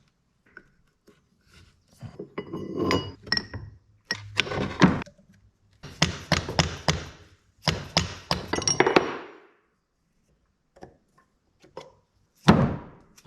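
Metal engine parts and tools clinking and knocking together in about four bursts of quick strikes, a few of them with a short metallic ring.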